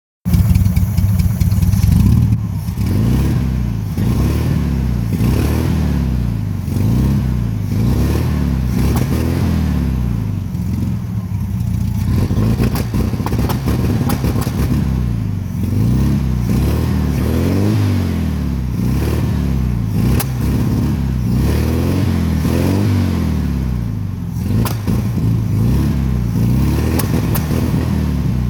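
1972 VW Beetle 1300's air-cooled flat-four engine running with a misfire, its speed rising and falling unevenly over and over.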